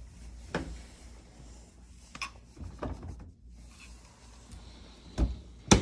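Scattered knocks and clicks from handling the dishwasher door and its parts, about five separate strikes with the loudest two near the end, over a low steady hum.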